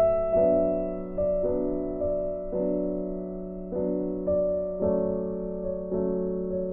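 Background music: a soft piano or electric-piano melody over sustained chords, a new note struck every half second to a second and fading away.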